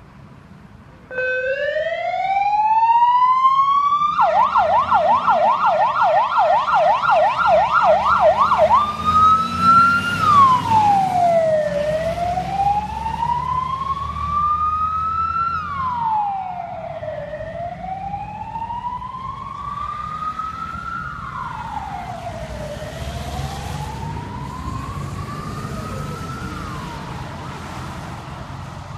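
Federal Signal AS422 electronic siren on a fire-service hazmat truck starts about a second in with a rising wail, switches to a fast yelp for about five seconds, then goes back to a slow rising-and-falling wail that grows fainter as the truck drives away. The truck's engine runs underneath.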